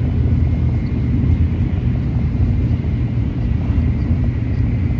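Steady rumble of a Hikari Shinkansen running, heard from inside the passenger cabin, with a faint high whine over it.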